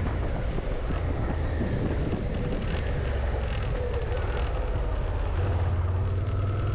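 Suzuki SV650's V-twin engine running under wind rush, heard through a helmet intercom microphone as the motorcycle slows down. The wind hiss thins as it slows, and the engine's low hum grows stronger near the end.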